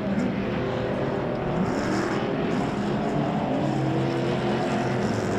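Several short-course off-road race trucks' engines roaring together, their pitch rising and falling as the trucks accelerate and back off through the turns.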